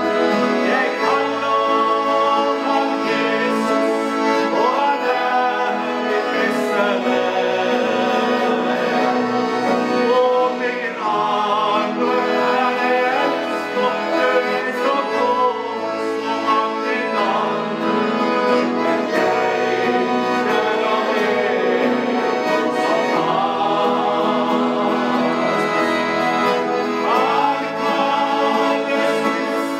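Two men singing a Norwegian gospel song to accordion accompaniment.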